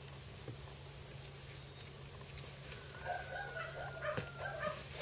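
Five-week-old puppies giving small high-pitched whines and yips while play-wrestling, starting about three seconds in.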